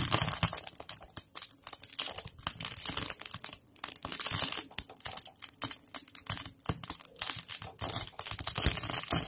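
Cumin seeds sizzling and crackling in hot oil in a diya over a gas flame: a dense, continuous run of small pops and crackles. This is a tempering (chhaunk), the seeds being fried until they turn black.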